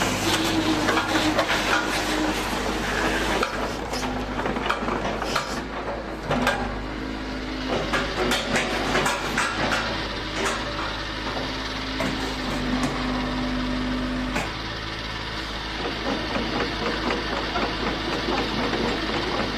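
Kobelco SK75UR-3ES hydraulic excavator running, its diesel engine humming steadily while the hydraulic pump whines in stretches that shift in pitch as functions are worked, with repeated metallic knocks and clanks, most of them in the first half.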